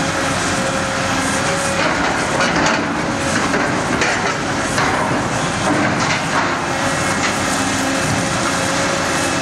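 Volvo EC 950F demolition excavator running under load with a steady whine, its MBI SH 1100R Eagle III scrap shear working through scrap, with irregular clanks and scrapes of metal.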